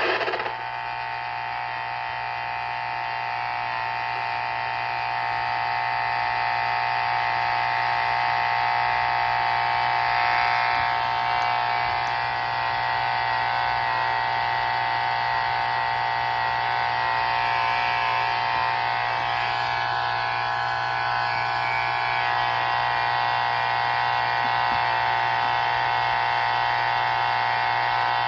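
Steady electrical hum and buzz on a weather-radio broadcast channel between warning messages, with no voice; it holds level and pitch throughout.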